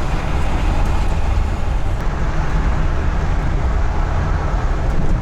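Vehicle running with a steady low rumble and road-like noise.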